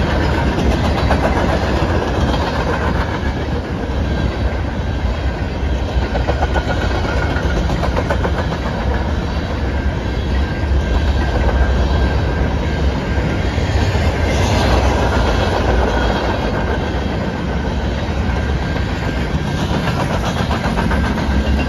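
Freight cars of a Canadian Pacific manifest train rolling slowly past a grade crossing: a steady, loud rumble and clatter of steel wheels on the rails.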